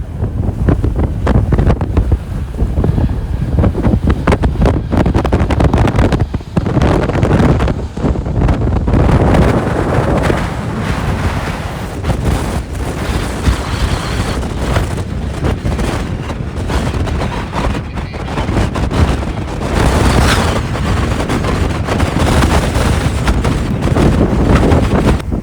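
Strong gusting wind buffeting the microphone, a heavy, uneven rumble.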